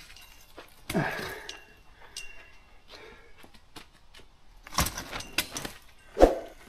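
Scattered metallic clinks and knocks of camp gear being handled, some with a short ring, with louder knocks about a second in and near the end.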